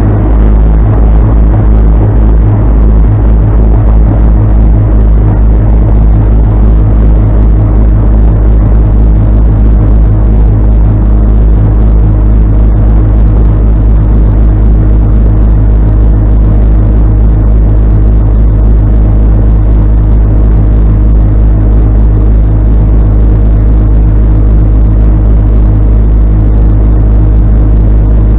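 Heavy-equipment diesel engine running steadily and loud, a constant drone with a strong low rumble, while it works hauling a bulldozer out of the mud by chain.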